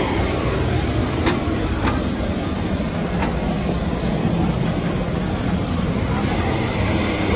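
Footsteps climbing metal checker-plate stair treads, a few light clanks over a loud, steady, low mechanical drone.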